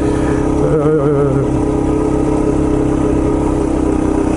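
Yamaha TT-R230's single-cylinder four-stroke engine running at steady low throttle, with a brief wavering rise in engine speed about a second in.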